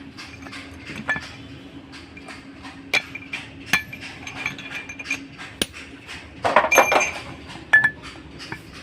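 Hammer striking the steel yoke and cross of a truck propeller shaft's universal joint, knocking at the bearing cups. The blows are separate, sharp and ringing, with a quick run of them past the middle, over a steady low hum.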